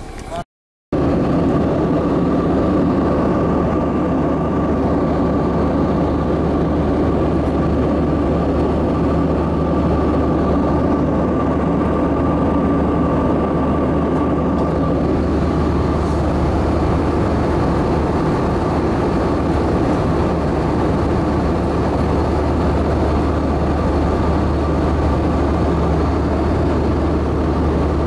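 Airliner cabin noise in flight: a steady, loud drone with a thin unchanging whine over it. It starts after a brief silent gap about half a second in.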